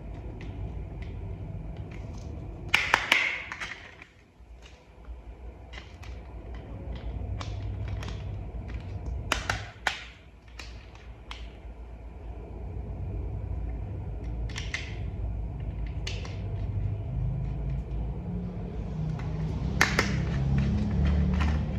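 Plastic toy parts clicking and snapping as pieces are handled and fitted together: scattered sharp clicks, with a louder cluster about three seconds in and again near the end, over a steady low hum.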